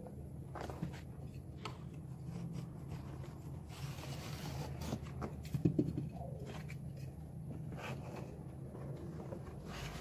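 Hands pressing and sliding carpet tile into a stair tread's nosing trim: scattered light scrapes and knocks, with a soft rubbing hiss about four seconds in and a few firmer knocks a little later. A steady low hum runs underneath.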